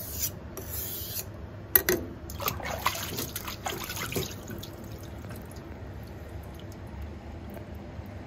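Knife blade scraping across a wet 1000-grit Naniwa whetstone in a couple of strokes, then a sharp click and a few irregular knocks and clinks about two to four seconds in, before the sound settles to a low steady background.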